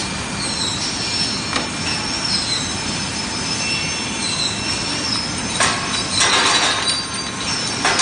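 Industrial conveyor washer-dryer running: steady machine noise with short high squeaks from the wire-mesh conveyor belt. From about halfway through, small stamped metal parts clatter as they tumble off the end of the belt.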